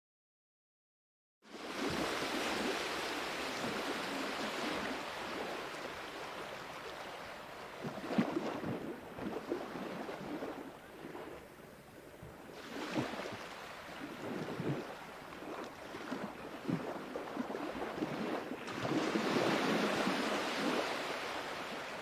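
Dead silence for about a second and a half, then sea waves cut in suddenly. The surf washes in and draws back in slow swells, with louder surges a few times.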